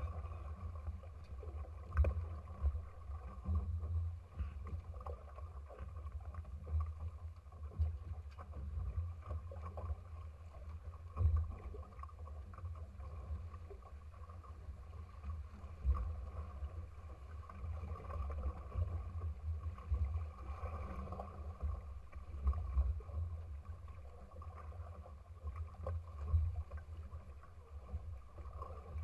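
Shallow water lapping and sloshing against a small trimaran's hull right at the waterline, heard as an uneven low rumble that surges irregularly, with a few small knocks.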